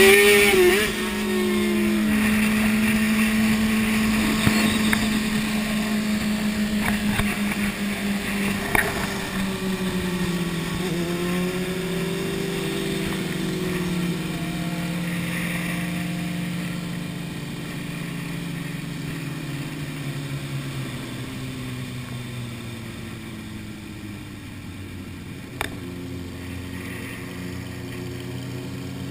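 Sport motorcycle engine running while ridden, heard from a camera mounted on the bike. A short rev right at the start, then a steady engine note that holds for several seconds before slowly dropping in pitch and loudness as the bike eases off, with a steady hiss of wind and a couple of sharp clicks.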